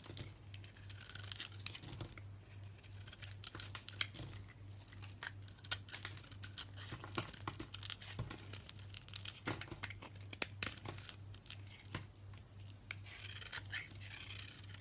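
Dense, irregular crisp crackling and tearing close to the microphone, over a steady low hum.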